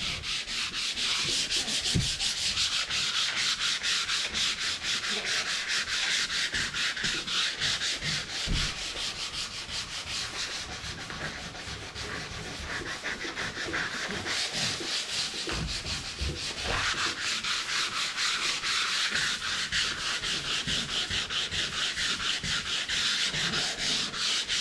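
Hand sanding with sandpaper on painted wooden drawers, rubbing the white paint off in quick back-and-forth scratchy strokes. The rasping eases off a little around the middle, then picks up again.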